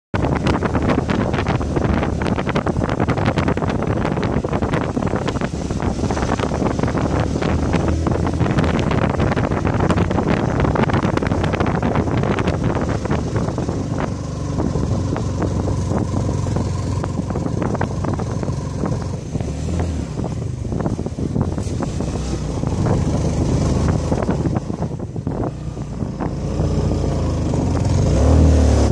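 Motorcycle heard from the pillion seat while riding: the engine running along under heavy wind buffeting on the microphone.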